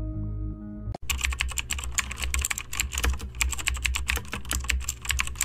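Fast typing on a computer keyboard: a rapid, uneven run of key clicks that starts suddenly about a second in. Before it, soft background music cuts off.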